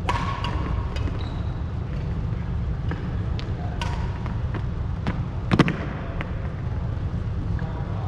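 Badminton rally: sharp cracks of rackets striking the shuttlecock, with brief squeaks of court shoes on the wooden floor and footfalls, over a steady low rumble. The loudest is a double crack with a thud about five and a half seconds in.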